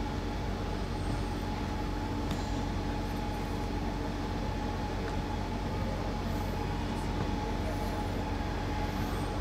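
Steady hum and rumble of a railway station platform, with a few faint steady tones and no change in level.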